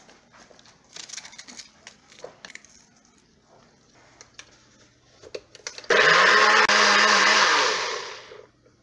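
Nutribullet blender motor running for about two and a half seconds, pureeing chunks of raw onion, then winding down. Before it, small clicks and knocks as onion pieces go into the plastic cup and the cup is fitted onto the base.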